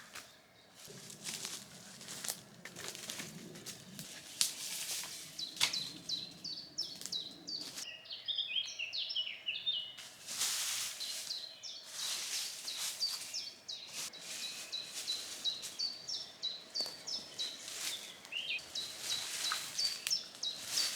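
Intermittent rustling and scraping of leaf litter and twigs being cleared from the woodland floor by hand, under birds singing with many short, repeated high chirps.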